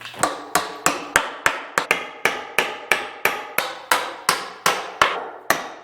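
Hammer pounding on the wooden pallet table, a steady run of quick blows about three a second, each ringing briefly.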